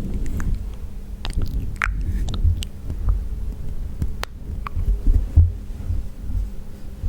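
Close-miked wet mouth sounds: scattered sharp clicks, tongue pops and smacks, over soft low thumping from breath and lips on the microphone.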